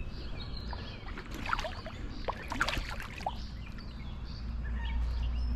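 Water splashing and sloshing as a hooked carp thrashes at the rocky edge of the creek and is drawn in by hand, with a scatter of short splashes in the middle and a low rumble rising near the end.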